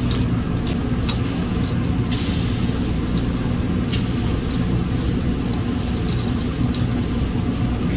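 A steady low mechanical rumble, like an idling engine or a running fan, with a few short sharp clicks of metal tongs against the steel grill grate.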